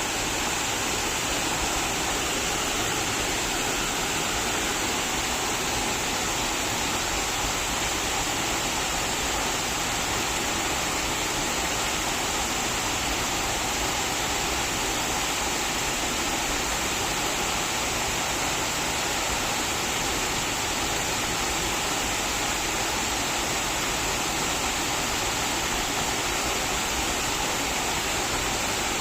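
Goitstock Waterfall's water pouring down and splashing into its pool: a steady, unbroken rush, strongest in the hiss of the upper range, without change.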